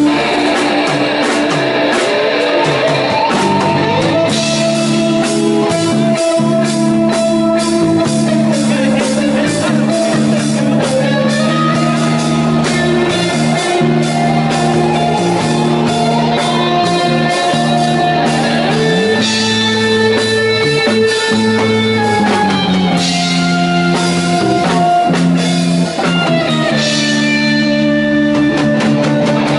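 Live indie rock band playing, with electric guitars and a drum kit. The chords are held and change every couple of seconds over a steady drum beat.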